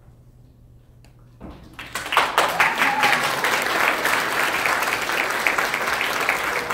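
An audience in a hall breaks into applause about a second and a half in, a dense, steady clapping that carries on.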